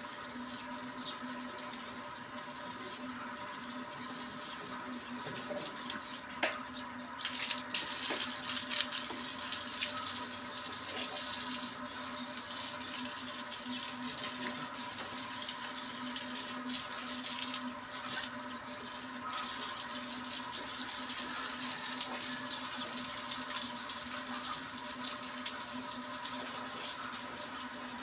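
Water running from a garden hose and splashing onto a concrete pig-pen floor in a steady rush. The spray turns hissier about seven seconds in.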